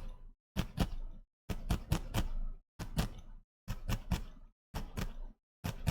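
Felting needle stabbing repeatedly into wool, in quick runs of three or four pokes about once a second.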